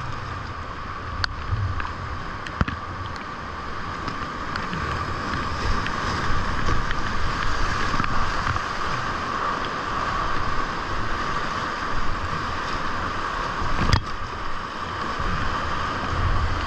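Whitewater rapids rushing around a kayak, close to the microphone, with a low rumble beneath; the rush grows louder about four to six seconds in as the boat runs into the rapid. A few sharp knocks, the strongest about fourteen seconds in.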